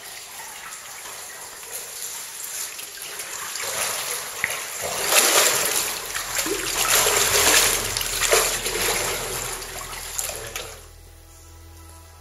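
Water sloshing and splashing around a caver wading waist-deep through a flooded cave passage, building up and loudest through the middle. It cuts off near the end, leaving soft music.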